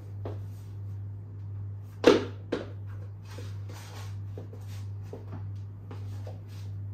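Footsteps of flat-soled shoes tapping on a laminate floor, with a louder knock about two seconds in and a second one just after, and some soft rustling, over a steady low hum.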